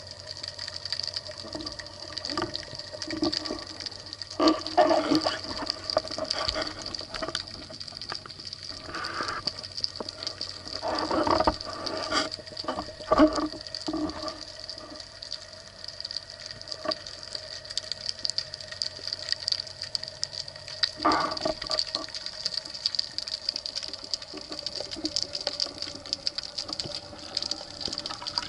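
Underwater ambience picked up by a camera mounted on a speargun: a steady high hiss with fine crackling, and a few short swells of gushing water noise, a few seconds in, near the middle and about two-thirds of the way through.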